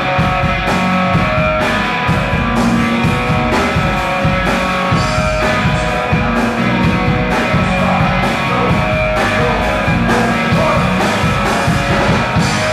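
Live rock band playing loud: electric guitar over bass and drums, with a steady drum beat.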